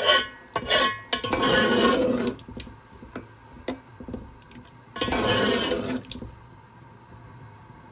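A long steel ladle stirring potato chunks in watery curry in an aluminium pot: swishing and scraping in several spells, the longest about a second in and another about five seconds in, with a few light clinks of the ladle on the pot between them.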